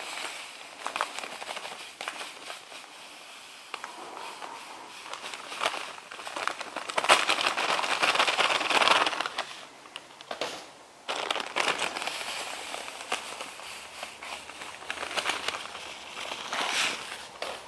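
Cane sugar pouring from a crinkly packet into a glass jar of frozen aronia berries. The granules hiss in spells, loudest about seven to nine seconds in, while the packet crinkles and rustles.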